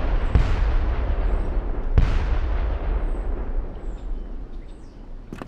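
Gunshots echoing: the long rolling boom of one shot dies away, then a second sharp shot about two seconds in booms and slowly fades.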